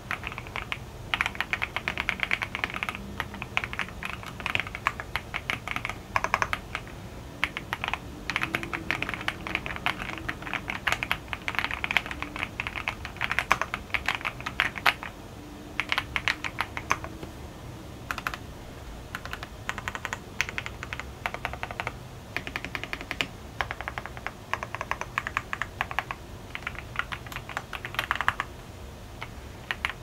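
Typing on a Preflow Archon AK74 full-size mechanical keyboard: fast, continuous runs of key clacks broken by short pauses between bursts.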